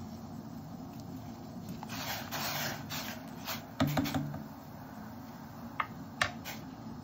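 Coarse salt tipped from a wooden spoon into a stainless steel pot of heating water: a grainy hiss about two seconds in, then a few knocks of the wooden spoon against the pot near the middle, and two light ticks near the end. A low steady hum from the gas burner and the heating water runs underneath.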